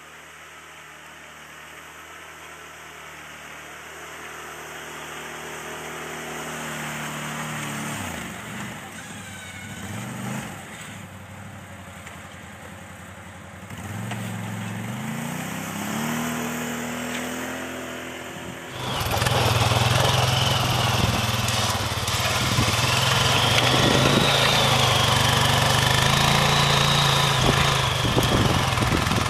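ATV engines pushing snow with front plow blades. First a Can-Am quad's engine revs up and drops back twice as it works the blade. About two-thirds of the way through it gives way to a louder, steadier quad engine with a wavering high whine.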